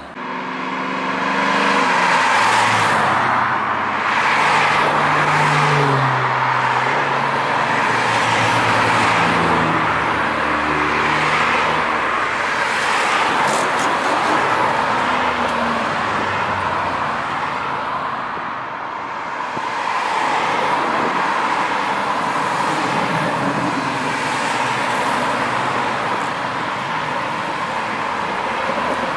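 A stream of cars driving past one after another at cruising speed: a steady rush of tyre and road noise with engine notes that rise and fade as each car goes by.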